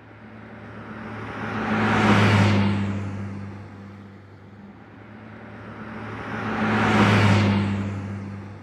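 Two cars passing by on a road, one after the other: each one swells up and fades away, the first about two seconds in and the second about seven seconds in.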